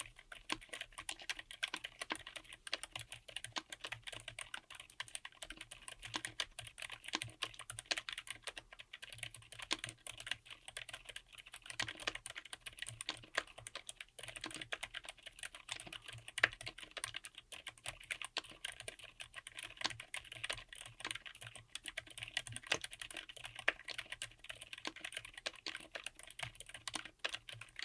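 Typing sound test on a mechanical keyboard fitted with Akko Fairy silent linear switches: a quiet, continuous run of soft, irregular keystrokes.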